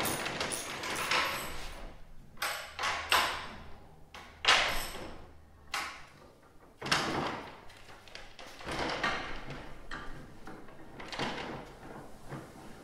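A half-inch socket on a ratchet tightening the crimped lock nuts of a carbide runner on a plastic snowmobile ski. Irregular scrapes and knocks follow as the ski and runner are shifted on the workbench, the loudest about four and a half seconds in.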